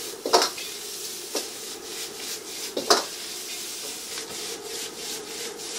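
Metal ladle scraping and stirring in a wok during stir-frying over a high gas flame, with the food sizzling; the ladle strikes the wok sharply three times, about a third of a second, a second and a half, and three seconds in.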